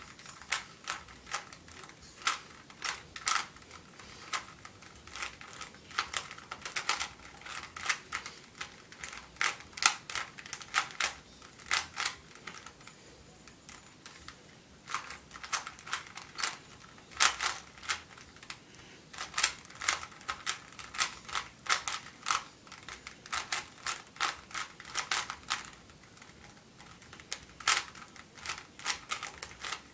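Rubik's Cube layers being turned by hand during a timed solve: a fast, irregular run of plastic clicks, with a lull of about two seconds near the middle.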